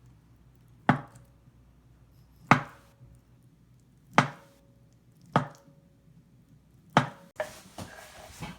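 Kitchen knife dicing avocado on a cutting board: six sharp, separate knocks of the blade reaching the board, spaced one to one and a half seconds apart, with the last two close together and a softer rustle of noise after them near the end.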